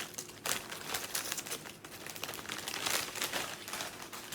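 A bag of plain potato chips crinkling as it is handled, a dense run of crackles.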